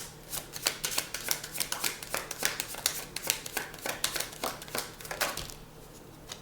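A deck of tarot cards shuffled by hand: a quick, uneven run of card slaps and riffles, several a second, that stops about a second before the end.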